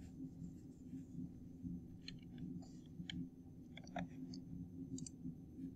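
Faint computer mouse clicks, about half a dozen spread irregularly, over a low steady hum.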